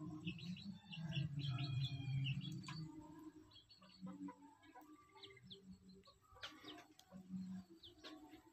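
A mother hen clucking low while her chick peeps in short high cheeps. The clucks run together for the first three seconds or so, then come singly about once a second.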